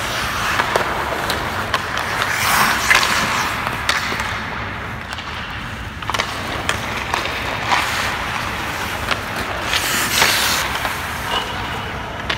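Ice hockey goalie's skate blades scraping on the ice as he pushes and shuffles across the crease, with sharp knocks of pads and stick against the ice. The longest scrapes come a couple of seconds in and again near the end.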